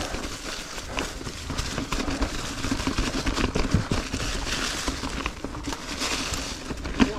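Ibis Ripmo mountain bike rolling slowly over rocky trail: tyres crunching over rock, with frequent small knocks and rattles from the bike.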